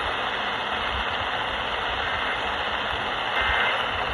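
Steady radio static hiss from a weather radio receiver, with a few faint brief tones about two and three and a half seconds in.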